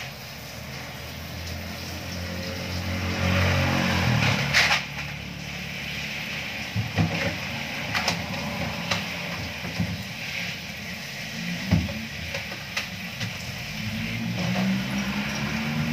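Water from a garden hose spraying and splashing inside an upright glass-door freezer, with a few sharp knocks as its inside is worked on. A motor vehicle's engine rises in pitch about three seconds in and again near the end.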